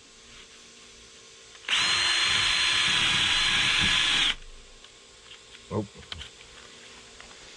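Cordless drill with a sanding bit running at a steady high whine for about two and a half seconds, then stopping, as it sands the fiberglass and epoxy around a sailboat's centerboard slot. A faint knock follows.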